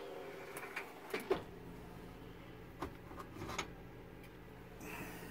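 Faint, scattered clicks and light knocks from handling at a gas range's controls, with a faint low hum starting about a second in.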